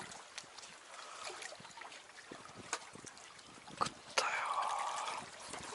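Lake water lapping and trickling against concrete tetrapods, with a few small clicks and a short whirring burst about four seconds in.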